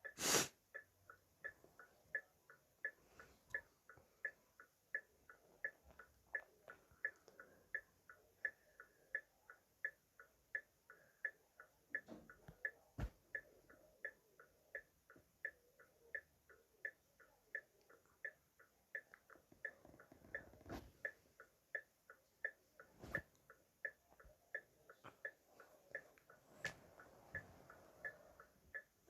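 Car hazard-light flasher relay clicking in a steady, even tick-tock, about two to three clicks a second. A sharper, louder click sounds just after the start, and a few faint knocks fall among the ticks later on.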